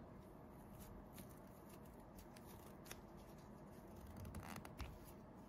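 Near silence with a few faint clicks and soft rustles of hands handling yarn and a crochet hook, a few bunched together a little past four seconds in.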